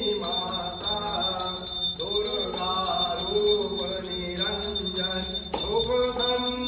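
A Hindu devotional aarti song: a voice sings in long, bending phrases over a bell that rings steadily.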